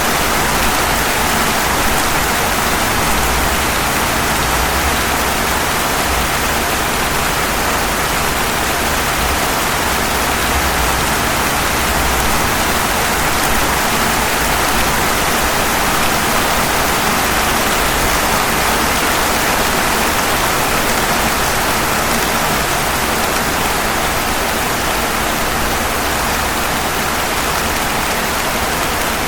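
Steady rain falling on pavement: an even, unbroken hiss.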